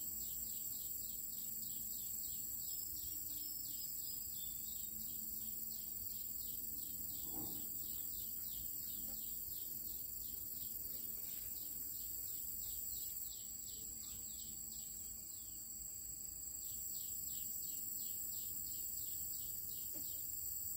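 Insects calling: a steady high-pitched trill with a short chirp repeating about three times a second, typical of crickets and katydids in the vegetation.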